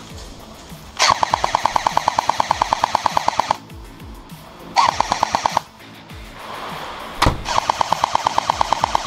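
M4-style airsoft electric rifle firing on full auto, about fifteen shots a second: a long burst, a short burst, then another long one. A single sharp knock comes just before the last burst.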